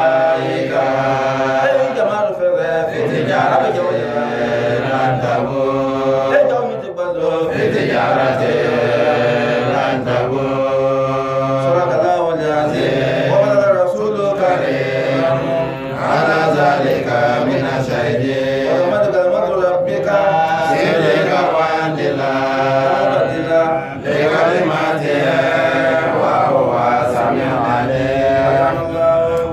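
Men's voices chanting a melodic religious recitation, long held and gliding notes in continuous phrases with brief breaks between them.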